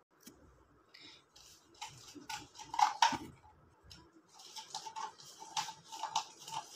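A wooden stick stirring a gritty salt-and-toothpaste mix in a plastic cup: irregular short scrapes and clicks against the cup, in two bouts.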